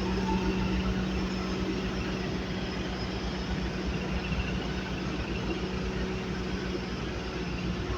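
Skid steer engine running steadily with a constant low hum and rumble.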